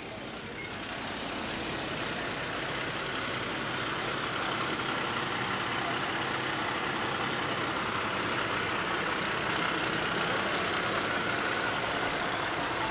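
An engine running steadily, with a hiss over it. It swells over the first two seconds and then holds even.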